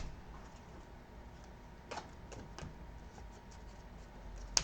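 Chrome baseball trading cards being handled and flipped through by hand: a faint rustle with a few light ticks, and one sharper click near the end.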